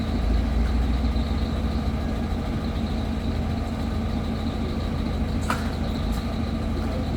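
An engine running steadily at a constant speed, with a single sharp knock about five and a half seconds in.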